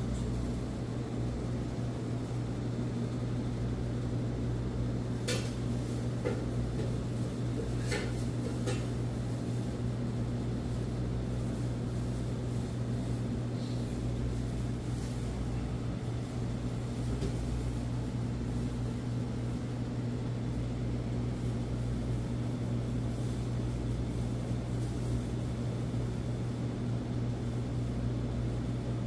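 Steady low hum of restaurant kitchen equipment, with a few sharp clinks of utensils against dishes about five and eight seconds in.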